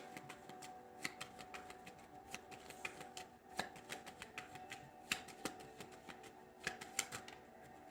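Tarot cards being shuffled by hand: faint, irregular clicking and flicking of cards, with quiet background music underneath.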